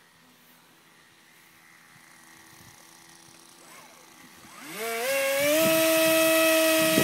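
Electric motor and pusher propeller of a Funjet RC model jet spooling up to full throttle for a hand launch: a whine that starts about four and a half seconds in, rises in pitch in a few steps, then holds steady and loud.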